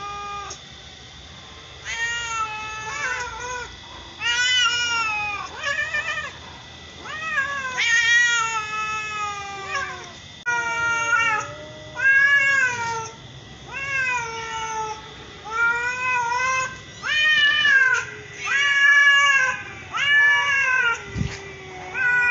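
White-and-ginger domestic cats meowing over and over, a call about every one to two seconds, most calls sliding down in pitch as they end.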